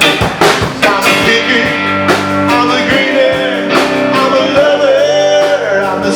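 A live rock band playing: drums, bass and electric guitar, with a wavering melodic line over them.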